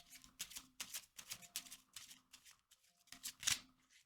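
A tarot deck being shuffled by hand: a run of quick papery strokes, the loudest about three and a half seconds in.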